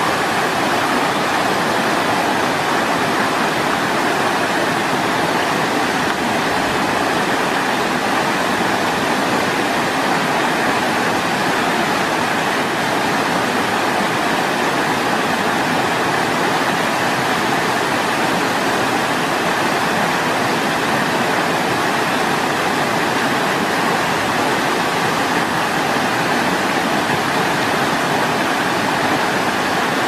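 Small waterfall pouring over rocks close by: a loud, steady, unbroken rush of water.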